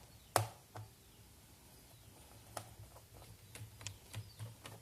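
Small sharp clicks and light ticks of a small Phillips screwdriver working a screw out of a plastic laptop bottom case: two clear clicks in the first second, then a run of faint, quick ticks.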